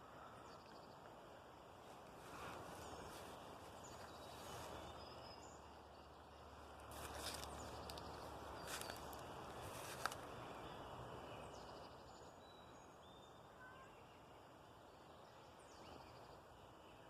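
Faint outdoor ambience: a low, steady hiss with a few faint, short high chirps, a little soft rustling, and one sharp click about ten seconds in.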